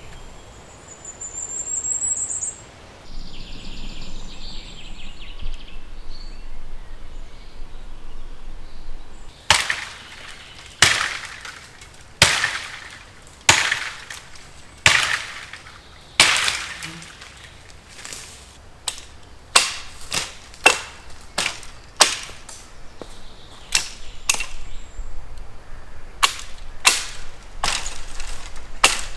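An axe chopping wood. Sharp single blows start about ten seconds in, at first roughly one every second and a half, then quicker at about two a second, with a short pause before the last few.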